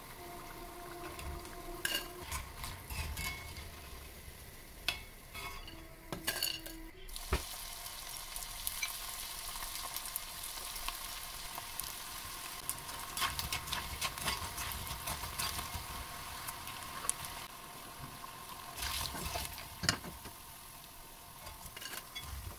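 Cornflake-coated idli pieces deep-frying in hot oil in a cast-iron pan, a steady sizzle throughout. A metal slotted spoon clinks against the pan now and then in the first several seconds, and again briefly near the end.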